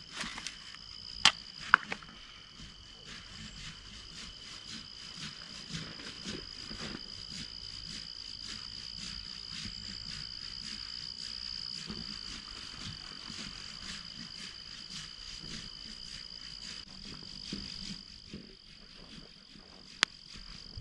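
Crickets trilling: a steady, high, evenly pulsing chorus at two pitches. A few sharp clicks stand out over it, two about a second in and one near the end.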